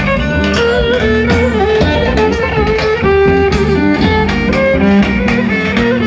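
Lively Roman havası dance music with a steady percussive beat under a quick, stepping melody.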